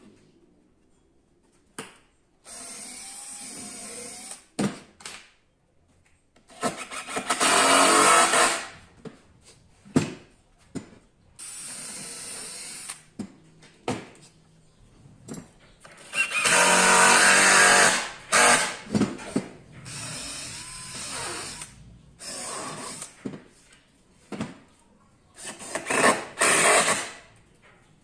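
Power tool run in a series of short bursts of one to three seconds each, working the salvaged spool wood, with two loud stretches in the middle.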